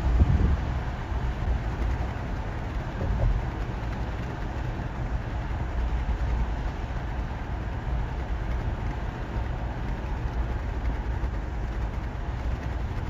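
Steady low rumble of outdoor ambient noise with a faint hiss above it, a little louder in the first half second.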